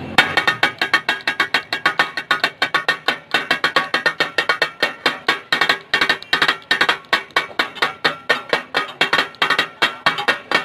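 Two flat metal spatulas chopping and scraping meat masala on a large flat iron tawa griddle, clanking against the hot plate in a rapid, steady rhythm of about five strikes a second, the street-food 'tak-a-tak' beat.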